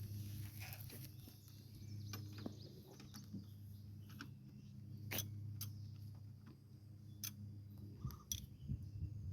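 Scattered light clicks and taps of hand tools and metal parts being handled, about eight in all, over a faint steady low hum.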